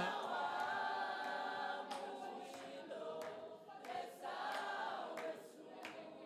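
A choir or congregation singing a worship response together, softer and more distant than the lead voice.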